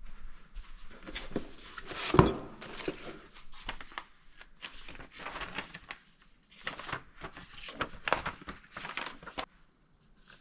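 Handling noises: irregular rustling, crinkling and clicks as the sound bar's wiring harness is handled, with one sharp knock about two seconds in.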